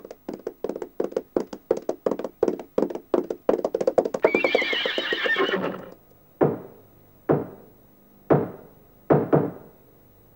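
Horse hooves clip-clopping, growing louder and faster as the horse approaches, then a horse whinnying for about two seconds. Four single thuds follow, about a second apart.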